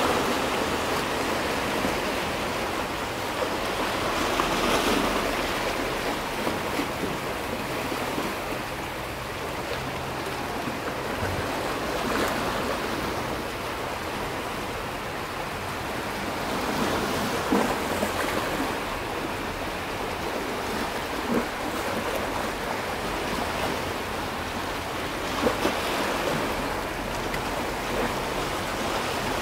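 Sea waves washing against a rocky shore: a steady wash that swells every several seconds as a wave comes in, with a few small splashes.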